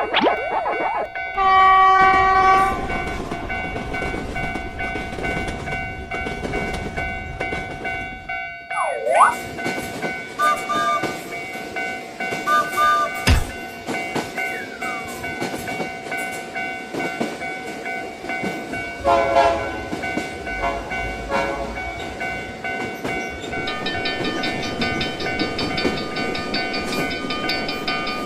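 Animated train sound effects: a train running, with a loud horn blast about two seconds in, over steady tones and a few short cartoon effects. Near the end a fast repeating ringing starts.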